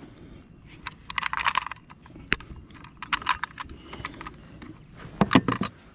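Plastic clicks and short rattles of a fish lip grip and a hand-held fish scale being handled and hooked together, with a louder knock about five seconds in.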